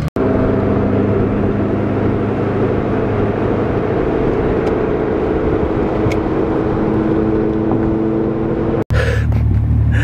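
A 12-valve VR6 engine and exhaust running at a steady speed, giving a steady droning note over a rumble. About nine seconds in, the sound drops out for an instant and comes back as a deeper, heavier rumble.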